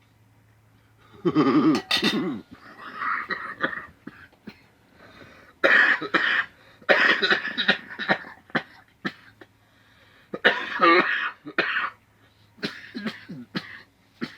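A man coughing and hacking in several harsh, irregular fits, his reaction to a mouthful of wasabi burning his throat.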